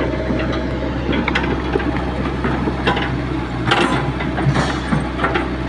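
Hitachi Zaxis 110 excavator's diesel engine running steadily under load, with metallic clatter from the bucket and linkage and a few sharp knocks as the bucket scrapes and pushes red soil.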